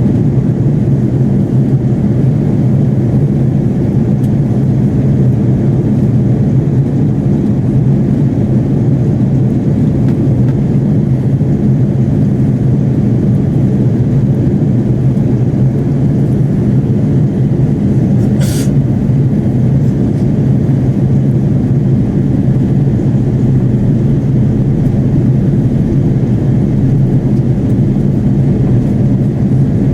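Steady cabin drone of an Airbus A330-300 airliner in flight: engine and airflow noise heard from inside the cabin. A brief high hiss breaks through about two-thirds of the way in.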